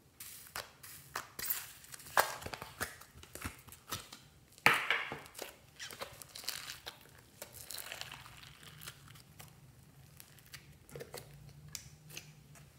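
Hands squeezing and kneading bubbly foam slime: sticky, irregular crackling and popping as the slime is pulled and pressed, with the loudest crackle about five seconds in and fewer toward the end.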